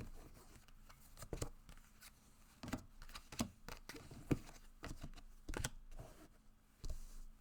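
Tarot cards being handled by hand, shuffled and laid down: irregular papery flicks, rustles and light taps.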